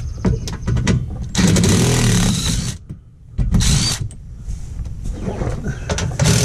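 Cordless impact driver with a 10 mm socket rattling the skid plate bolts loose, run in bursts: a long one about a second and a half in, a short one near four seconds, and another starting at the very end.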